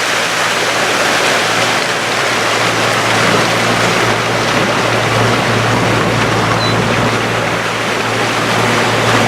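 Motorboat underway: a steady engine drone under a loud, even rush of wind and water.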